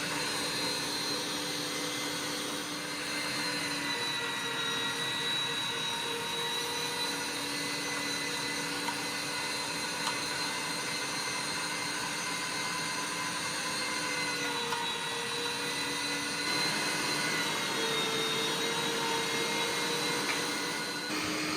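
Aobosi MG102A electric meat grinder running on its meat setting while grinding cubed steak: a steady, high motor whine over a noisier churn. Its pitch shifts slightly a few times.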